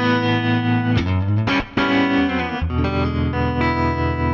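Electric guitar music, chords struck and left ringing one after another, with a lower bass part coming in about two-thirds of the way through.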